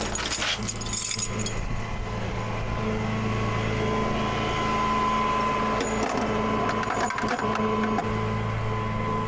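Tow truck's engine running with a steady hum that shifts pitch a couple of times, along with a higher whine. Scattered metal clicks sound in the first second and a half and again around six to seven seconds in, from tie-down gear being handled.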